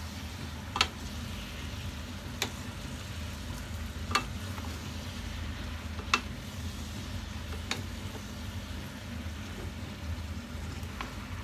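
Vegetables and chicken sizzling softly as they are stir-fried in a frying pan, with wooden spatulas knocking against the pan about every two seconds over a steady low hum.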